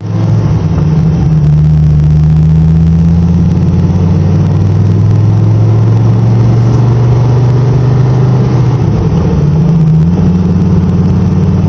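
Dodge Viper's V10 engine running at steady cruise, a loud, low, even drone whose tone shifts briefly about nine seconds in.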